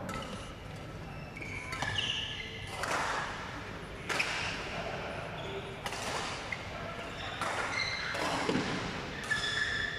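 Badminton rackets hitting shuttlecocks, with sharp smacks about every second or so, mixed with short squeaks of court shoes on the sports floor, echoing in a large hall.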